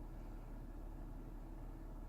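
Steady low hum inside a Toyota Mark X (GRX130) cabin with the air conditioning running, here without the 'buon' drone it sometimes makes.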